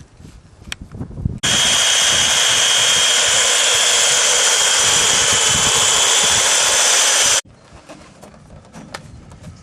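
Handheld electric power tool trimming about an eighth of an inch off the edge of an ABS plastic wing strut fairing. It runs for about six seconds as a harsh, loud noise with a steady high whine, starting and stopping abruptly.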